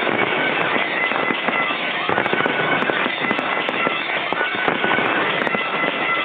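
Fireworks going off in quick succession: a dense, continuous crackle of sharp bangs and pops, with music playing along with the display.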